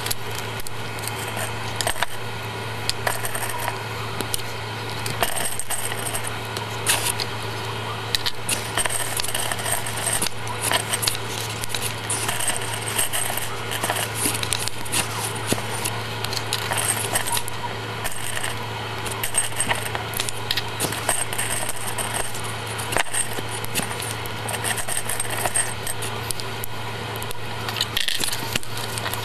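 Small plastic LEGO pieces clicking and clattering as they are handled, with many short sharp clicks throughout over a steady low hum.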